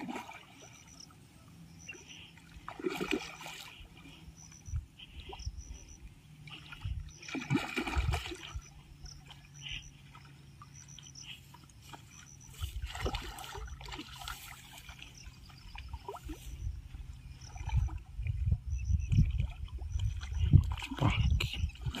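Hooked rohu splashing and thrashing at the water's surface as it is played on a rod and drawn into the shallows at the bank. The splashes come in irregular bursts a few seconds apart, growing more frequent and louder near the end as the fish nears the bank.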